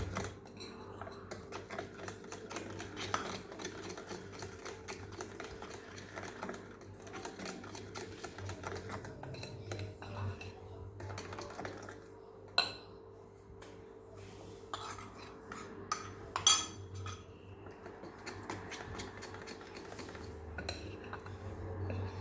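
Cake batter being mixed in a bowl as flour is worked in little by little: a utensil clicking and scraping against the bowl over and over, with two louder knocks, one about twelve seconds in and one about sixteen seconds in. A steady low hum runs underneath.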